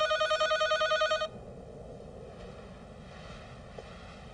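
Electronic telephone ringer trilling in a rapid warble, cutting off about a second in, followed by quiet room tone.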